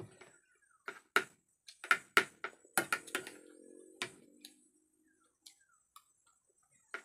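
Someone eating at a table: a string of sharp clicks from a fork and spoon working a plate of rice, with a low drawn-out hum for about two seconds in the middle.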